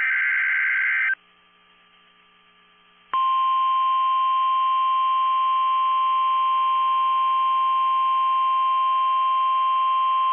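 End of an Emergency Alert System digital header burst, a harsh electronic buzz that stops about a second in. After about two seconds of quiet, the NOAA Weather Radio 1050 Hz warning alert tone starts: one loud, steady, unbroken tone.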